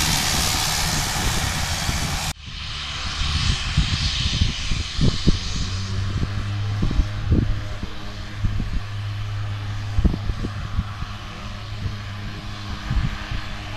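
A high-wing twin-turboprop's engines running loud and close on its departure; the sound cuts off abruptly about two seconds in. Then a fainter aircraft sound fades over the next few seconds, over a steady low hum and wind bumping the microphone.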